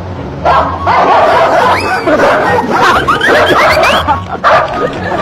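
A person imitating a small dog, a rapid run of high yips and yelps lasting about three and a half seconds from about half a second in.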